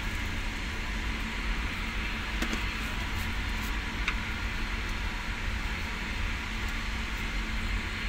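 Steady mechanical rumble with a constant hiss over it and a faint steady hum, broken by a few faint clicks.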